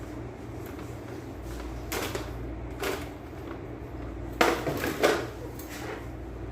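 Handling noise of the fibre optic cable and fish tape: a few scattered knocks and scrapes, the loudest about four and a half seconds in, over a steady low hum.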